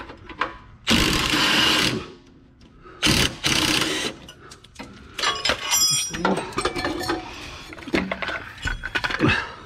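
Cordless impact wrench run in two bursts of about a second each, loosening the nut on a rear shock absorber's lower mount. Then metal clinks and rattles as the shock is worked loose by hand.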